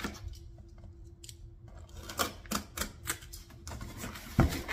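A handful of sharp clicks and taps between about two and three and a half seconds in, then one heavier low thump near the end, over a faint steady hum.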